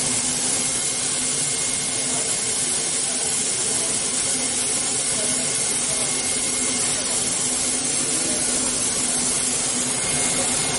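Paper tape slitting-rewinding machine running steadily at speed: a constant hiss with a steady hum and a thin high whine, unchanging throughout.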